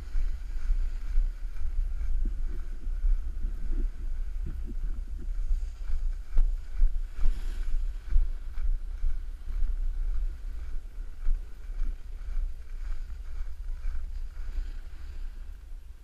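Wind buffeting the microphone of a camera moving down a ski slope, a heavy fluttering rumble, over the steady hiss of sliding on packed snow.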